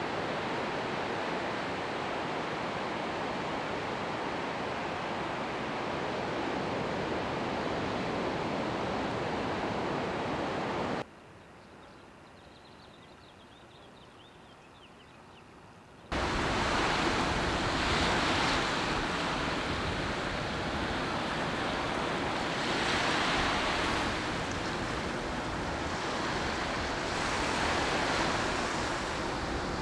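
Ocean surf washing onto a sandy beach, a steady rush. About eleven seconds in it drops abruptly to a fainter hiss for about five seconds, then returns louder, swelling every few seconds as waves break.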